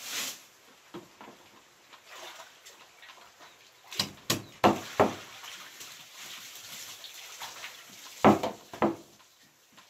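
Cleaver chopping through a duck joint on a wooden chopping block: a quick run of four sharp chops about four seconds in, then two more near the end.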